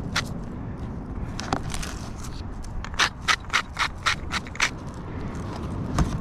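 A hand-twisted grinder mill being turned in short twists, a gritty ratcheting crunch about three times a second. A pause comes near the start, then a run of twists.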